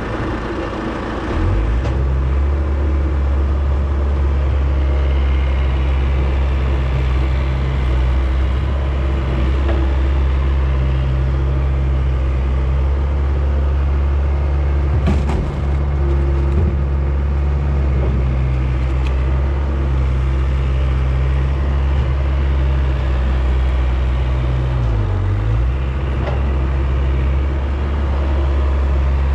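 John Deere skid steer's diesel engine running steadily at working speed, with a brief dip in engine speed about 25 seconds in and a single sharp knock about halfway through.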